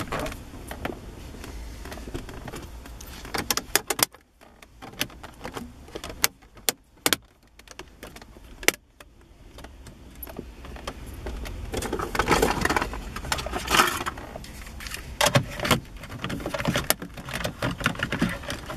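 A car stereo head unit being fitted by hand into its dashboard mounting sleeve: a string of sharp plastic-and-metal clicks and knocks, then scraping and rubbing as the unit is slid into the slot.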